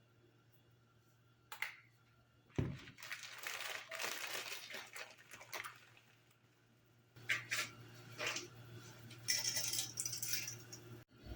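Small objects being handled at close range: a single click, a knock, then two spells of rustling and rattling with sharp clicks, over a low steady hum.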